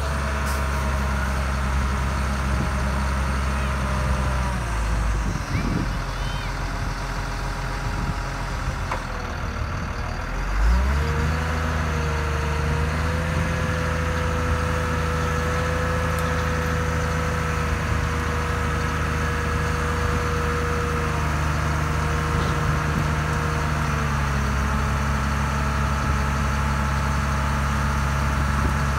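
Diesel engine of a hook-lift truck running while its hydraulic arm pulls a loaded deck up onto the truck. The engine note changes about five seconds in, rises again about eleven seconds in, and holds there with a steady higher tone until it settles back down about twenty-four seconds in.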